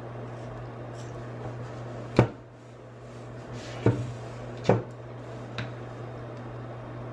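Handling noise while trimming applique fabric in a plastic embroidery hoop: three sharp knocks, one about two seconds in and two close together around four to five seconds, as the hoop is turned and shifted on the table. A few fainter scissor clicks and a steady low hum run underneath.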